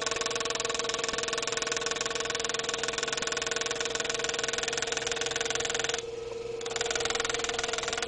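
GRS Gravermeister pneumatic engraving handpiece running with a steady buzz as a square graver cuts a scroll into a brass knife bolster. The sound thins out briefly about six seconds in, then carries on.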